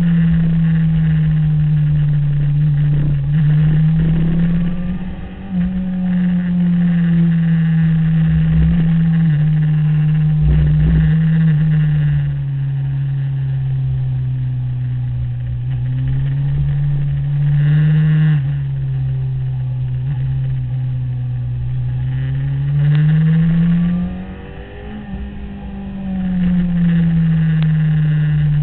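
Sport motorcycle engine heard from an onboard mount while lapping a track, its pitch repeatedly rising under throttle and falling off for the corners, with wind rush over the bike. The throttle shuts briefly about five seconds in and again near the end.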